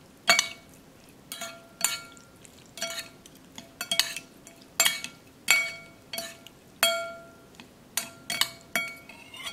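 A metal spoon clinking against a ceramic bowl while tossing boiled squid pieces in sauce. The clinks come irregularly, roughly one or two a second, each ringing briefly.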